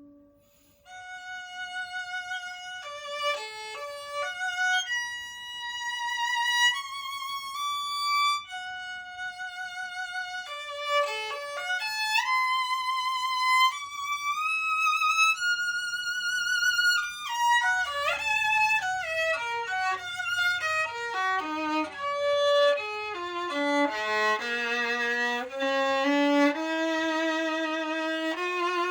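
German-made copy of a Stradivari violin played solo with vibrato. A melody of held notes starts about a second in, then about halfway through a run of notes steps down to the low strings, and it carries on in the lower register.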